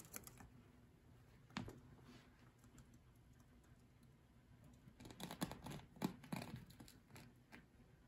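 Budgerigar crunching and rustling paper with its beak: faint, scattered crisp clicks and crinkles, with a busier run of them about five to six and a half seconds in.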